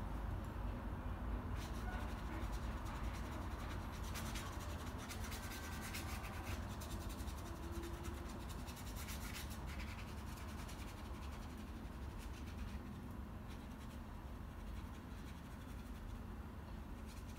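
Paintbrush bristles rubbing and scratching across canvas paper in short horizontal strokes, busiest in the first half, over a steady low hum.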